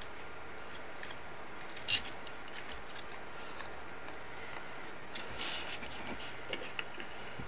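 Handling of die-cut cardstock pieces on a desk over a faint steady hiss: a sharp click about two seconds in, then a brief rustle of card a little past five seconds and a few soft ticks.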